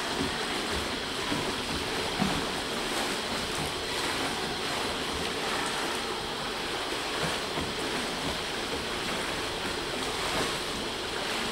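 Steady rushing of water around a moving tour boat, with a small knock about two seconds in.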